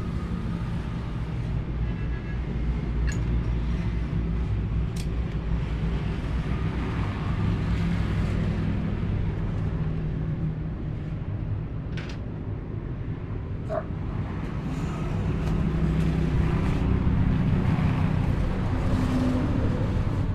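A motor or engine running steadily with a low drone, with a few sharp metallic clicks.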